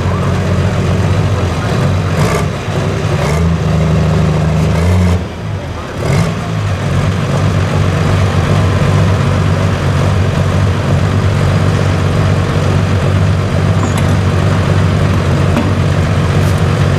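Pulling tractor's diesel engine running steadily in a deep, loud rumble, with a brief dip about five seconds in.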